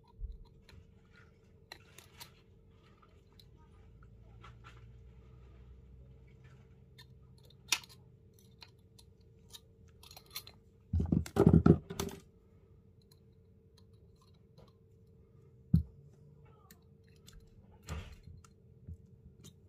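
Hands handling wire, pliers and a small glass jar: scattered clicks and taps as the wire is twisted around the jar's neck with pliers, with a loud burst of crunching and scraping about eleven seconds in. A faint steady hum runs underneath.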